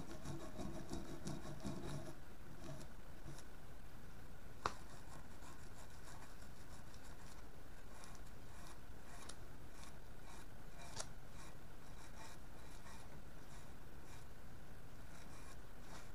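Brass wire brush scrubbing the grimy steel barrel of a Lee Enfield No. 1 Mk III rifle in quick, repeated back-and-forth strokes, with a sharp click about four and a half seconds in and another near eleven seconds.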